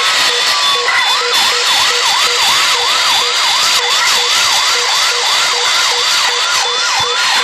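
Ambulance siren sounding loudly. About a second in it changes from a slow, falling wail to a fast yelp of quick rising sweeps, about three and a half a second.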